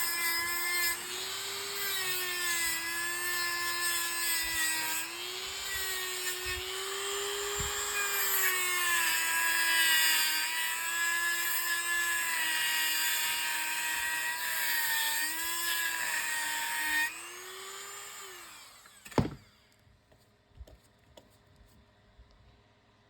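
A small high-speed electric power tool running with a whine whose pitch wavers up and down. About seventeen seconds in it is switched off and winds down, falling in pitch. A sharp knock follows, then a few light clicks.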